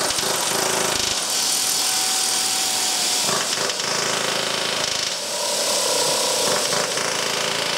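Pneumatic nut runner running continuously on a large aircraft nut, a loud steady hiss and grind whose tone shifts about three seconds in.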